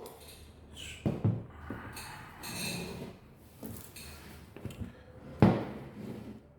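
Handling noise of objects being moved and set down on a hard surface: rustling and scraping, a couple of sharp knocks about a second in, and a louder knock near the end.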